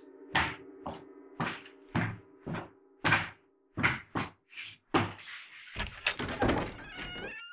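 Recorded footsteps, about two steps a second, played back from a sampler as part of a sound collage, over a low steady hum in the first few seconds. About six seconds in, a dense rattling clatter of a door being opened takes over.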